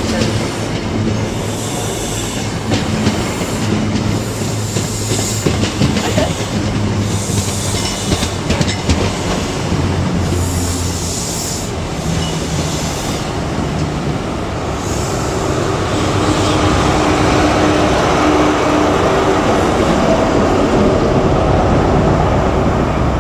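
High Speed Train of Mk3 coaches passing at speed, wheels clattering over rail joints, with a steady low diesel engine note. The noise grows louder and steadier about two-thirds of the way through.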